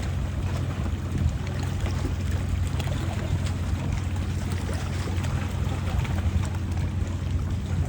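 An engine running steadily with a low, even hum, with wind noise on the microphone.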